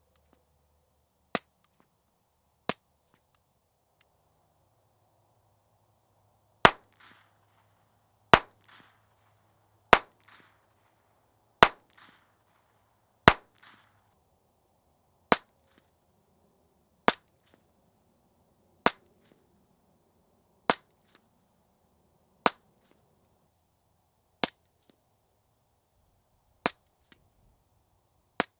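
Single shots from a .22 LR pistol, roughly one every one and a half to two seconds. About seven seconds in, a Walther PPK/S fires five unsuppressed shots, each a sharp crack with a short echo. From about fifteen seconds on it fires eight more through a Bowers Bitty .22 suppressor, slightly quieter and with less echo.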